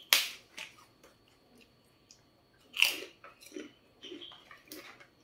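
Crisp fried cracker (kerupuk) snapped and chewed: three loud sharp crunches, one right at the start, one about three seconds in and one near the end, with quieter crunching between.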